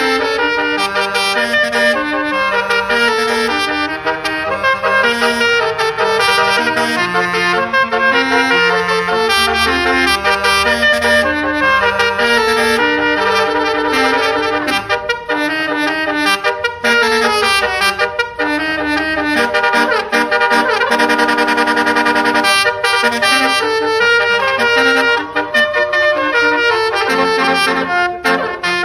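Basuri 36-note telolet bus horn playing a melody: a long run of brassy notes stepping up and down, often several sounding together.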